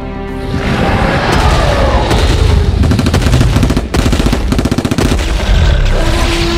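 Automatic gunfire: a long, rapid string of shots beginning about half a second in, over a heavy low rumble, with a brief break around four seconds in.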